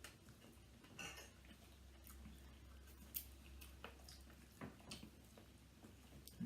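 Near silence with a handful of faint, scattered clicks of cutlery on dishes, over a low steady hum.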